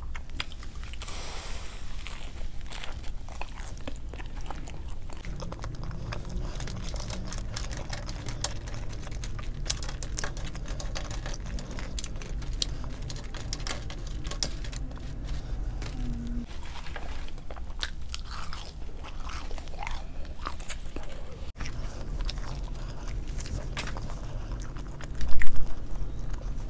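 A person chewing and biting McDonald's food close to the microphone, with many small wet mouth clicks over a low steady hum. There is a louder burst near the end.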